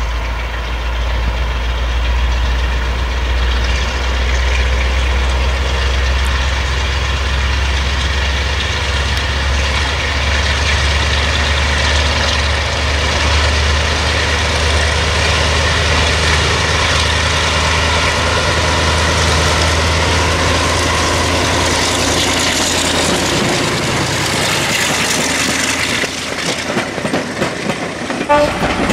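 Class 35 Hymek diesel-hydraulic locomotive working its train, its Maybach V16 diesel engine running hard with a steady deep drone. Near the end, passenger coaches roll past close by.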